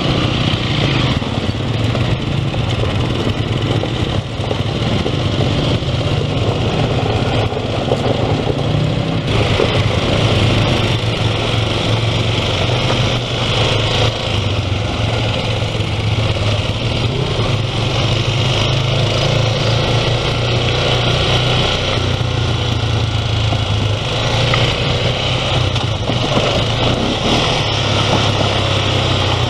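ATV (four-wheeler) engine running steadily while riding along a gravel and dirt trail, heard on board the machine.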